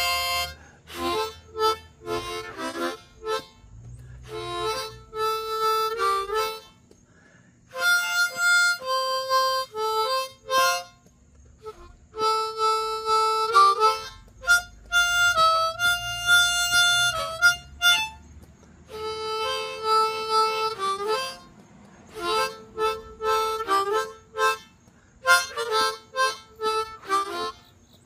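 Solo harmonica playing a melody in phrases a couple of seconds long, with short pauses between them; it stops near the end.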